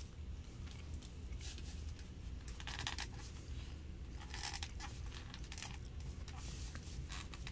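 A knife cutting pieces of wax honeycomb in its clear plastic box. The cutting noise comes in a few short, separate bursts.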